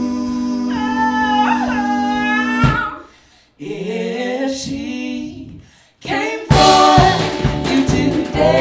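Live band music. A held chord under singing stops abruptly about three seconds in. After a short gap a voice sings a phrase alone, then the full band with drum kit comes back in about two-thirds of the way through.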